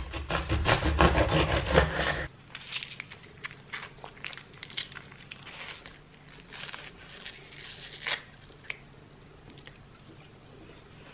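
A knife cutting through a watermelon on a wooden board, with a loud crunching of the rind for about two seconds that stops abruptly. Then a metal scoop scrapes and digs into the soft red flesh with light, scattered clicks.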